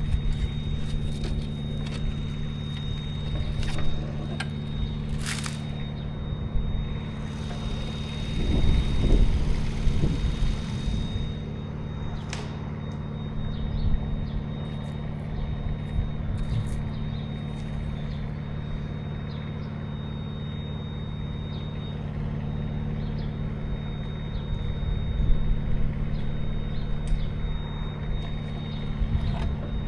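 An engine running steadily at a constant speed, with a few short knocks and a louder rushing noise for a few seconds near the end of the first third.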